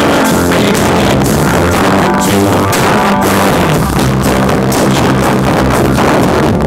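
Live rock band playing loud: electric guitars over a drum kit, amplified through the PA. It is heard from right beside the main speaker, so the audio is poor.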